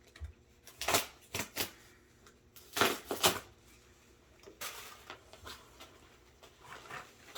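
Cardboard shipping box and its packaging being handled and opened: a few sharp scrapes and rustles, loudest around three seconds in, then a stretch of softer rustling.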